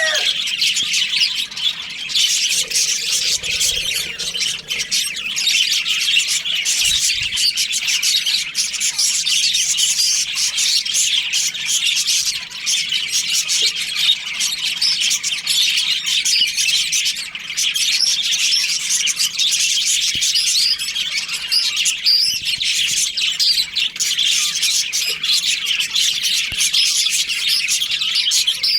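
A colony of budgerigars chattering and chirping continuously, many birds calling at once in a high twitter without pause.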